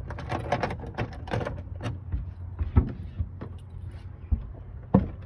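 Manual fire alarm pull station being reset by hand: a quick run of sharp clicks and rattles from its handle and latch, then a few separate clunks, the loudest about three seconds in and near the end.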